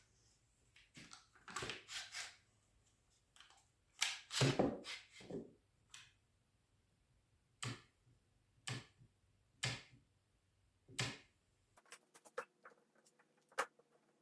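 Clamps being handled and tightened on a glued wooden workpiece: scattered knocks and rattles, then a run of single sharp clicks about a second apart, and small faint ticks near the end.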